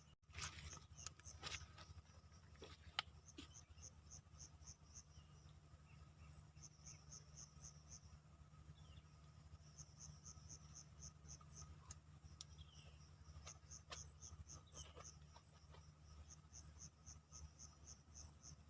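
Faint insects, crickets, chirping in repeated high-pitched trains of about five pulses a second, broken by short pauses, over a steady low hum. A few light clicks come in the first seconds.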